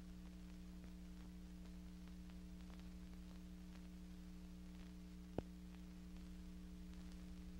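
Steady low electrical hum with faint crackles and one sharp click about five seconds in, the background noise of a silent film transfer.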